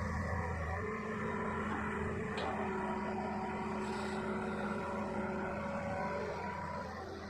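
Hitachi long-arm excavator's diesel engine running steadily under work, with several held tones; its deep low hum eases about a second in, and a brief knock sounds about two and a half seconds in.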